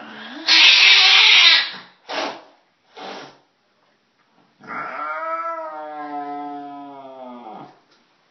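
A frightened cat under restraint hisses loudly for about a second, then twice more briefly. About halfway through it lets out a long drawn-out yowl of some three seconds that sags in pitch as it ends. It is the defensive hissing and yowling of an upset cat being handled.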